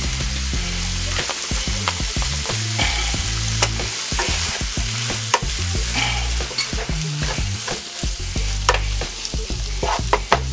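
Cubed chicken breast with onion and celery sizzling in a nonstick skillet while a wooden spoon stirs it, scraping and clicking against the pan.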